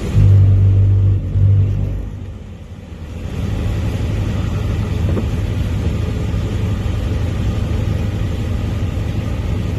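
Thunder rumbling loudly for about two seconds, then fading, followed by a steady low rumble.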